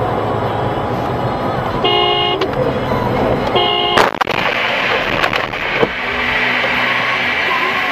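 Steady road noise inside a moving car, a car horn sounding two short blasts, then a sharp crash about four seconds in as the car hits the side of a truck, followed by a few smaller knocks.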